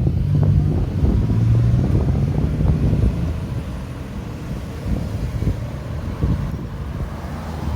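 A motor vehicle's engine hums steadily and then fades about three seconds in. Wind buffets the microphone with a rough low rumble.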